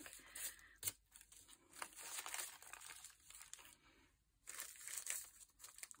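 Tissue paper being handled: faint rustling and crinkling, with a short pause a little after the middle.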